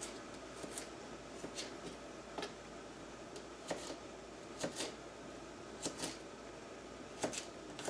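A kitchen knife slicing garlic cloves on a cutting board: a series of sharp, irregularly spaced taps as the blade comes down through the clove onto the board, about one a second.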